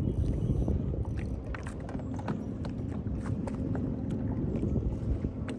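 Open-boat ambience: low wind rumble on the microphone with scattered light clicks and knocks, and a steady low hum that starts about two seconds in.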